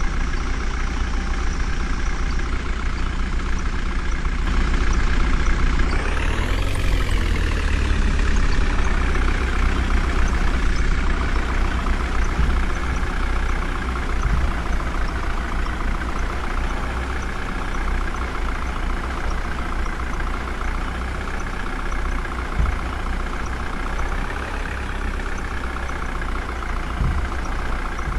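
Heavy diesel engine running at a steady, loud level. About six seconds in it revs up, then falls back over a few seconds.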